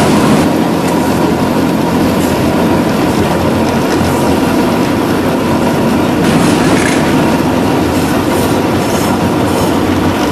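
Tram running along its rails, heard from inside the car: a steady rumble and rattle of the wheels on the track.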